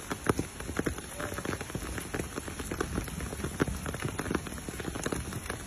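Steady rain pattering on leaves and branches, a dense run of irregular drop hits.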